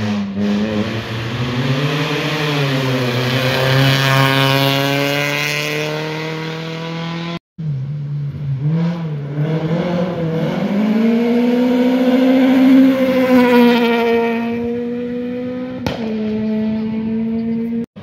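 Rally car engine at high revs on a hard run, its pitch climbing and dipping repeatedly through gear changes and lifts. The sound cuts out abruptly about seven seconds in, then a second run of the same kind follows.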